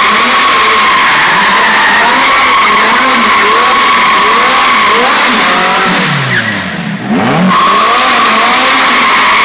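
Ferrari V8 revving hard as the rear tyres spin in a continuous high squeal through donuts on a concrete floor. A little past halfway the squeal cuts out and the revs fall away, then the engine picks up and the squeal resumes about a second later.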